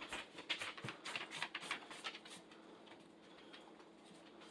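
Light, irregular splashing and dripping of bath water as a chicken is washed: a quick run of small taps and splashes for about two and a half seconds, then only a faint steady hum.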